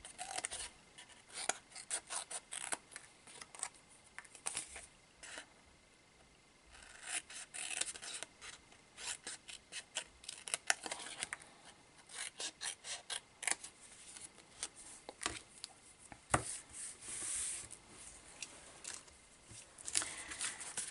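Scissors snipping into card stock in quick runs of short cuts, trimming small glue tabs, with paper rubbing and rustling between cuts. A single dull knock about sixteen seconds in.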